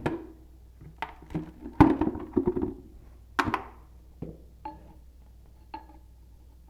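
Metal hand tool knocking and scraping inside a cast iron drain hub as old oakum is dug out: a run of sharp knocks, the loudest about two and three and a half seconds in, then a few lighter taps with a short metallic ring.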